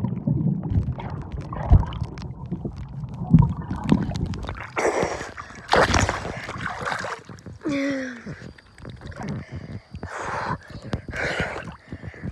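Pool water heard from underwater just after a jump in: muffled bubbling and churning. About five seconds in it breaks the surface into splashing and sloshing water.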